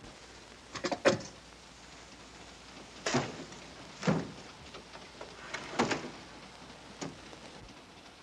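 A railway compartment door being handled: a run of sharp knocks, clicks and clatters, about five in all, the loudest about a second in, over the steady hiss of the moving train.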